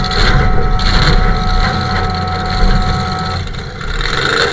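Demolition derby truck's engine running, heard from inside the stripped cab as a heavy rumble with clatter on top, and a steady high whine that cuts off about three and a half seconds in.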